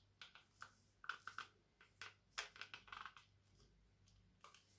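Faint small clicks and taps of hard plastic as a figma action figure is handled and fitted onto its clear plastic display stand. The clicks come in a quick run over the first three seconds or so, with one more near the end.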